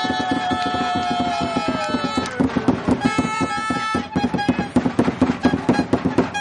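Supporters blowing fan horns, several held tones at once, some sagging in pitch, that stop about halfway through. Under them comes fast rhythmic clapping, about five claps a second, with voices; the clapping gets louder once the horns stop.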